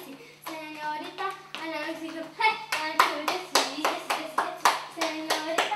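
Young girls chanting a sing-song clapping rhyme while clapping their hands to a quick, steady beat. The claps come thick and loud from about halfway through, at roughly three to four a second.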